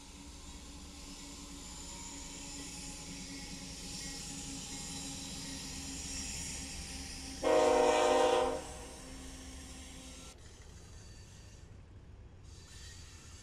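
A train going by, its rumble slowly growing louder, with one short horn blast of about a second a little past the middle of the clip.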